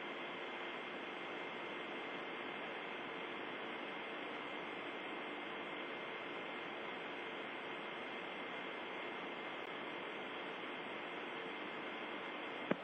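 Steady static hiss with faint steady hum tones from an open spacecraft-to-ground radio channel between transmissions, with a short click near the end.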